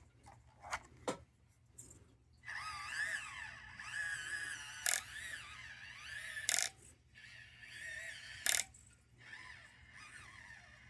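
Axial SCX24 micro crawler's small electric motor and gears whining, the pitch rising and falling with the throttle, starting about two seconds in. Three sharp clacks break in over the middle of the stretch.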